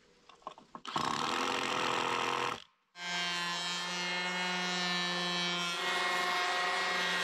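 Cordless electric hand planer shaving a chainsaw-milled cedar board. It starts about a second in with a second and a half of rough cutting noise, stops briefly, then starts again and runs with a steady whine.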